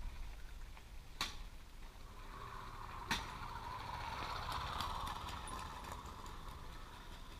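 VéloSolex 2200 moped's small two-stroke engine, mounted over the front wheel, running as the moped rides past, growing louder toward the middle and then fading away. Two sharp clicks, about a second in and about three seconds in.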